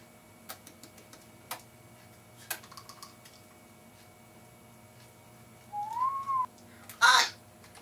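African grey parrot giving one whistle that rises and then levels off, about six seconds in, followed at once by a short, loud, harsh burst of noise. A few faint clicks come earlier.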